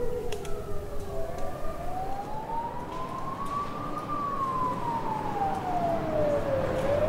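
A siren wailing in a slow rise and fall: it climbs for about two and a half seconds, falls for nearly three, then starts climbing again near the end, over a low rumble.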